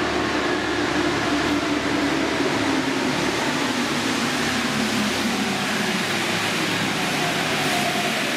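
Rubber-tyred Paris Métro train running along the platform behind the screen doors: a steady rumble and rush, with a hum that slowly drops in pitch over the first few seconds.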